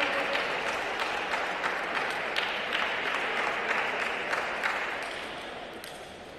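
Spectators applauding, a dense patter of clapping that thins out and dies away near the end.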